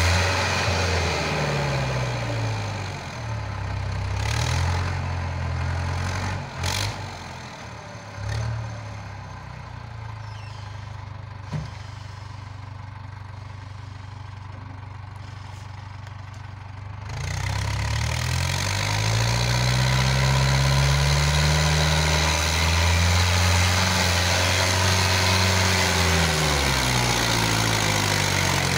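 Tractor engine revving up and down as the tractor works through deep mud. It runs quieter for several seconds in the middle, then climbs and is held at high revs before dropping back near the end.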